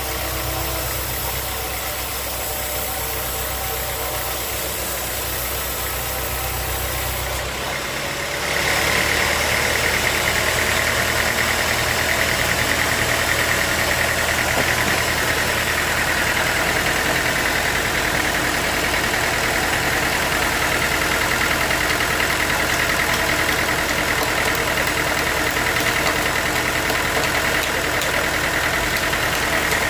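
Sawmill machinery's engine running steadily. About eight seconds in, the sound changes abruptly and grows louder, with a higher-pitched hiss added on top, and stays that way.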